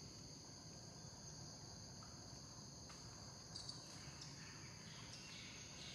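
Faint, steady high-pitched chorus of insects buzzing in the forest undergrowth.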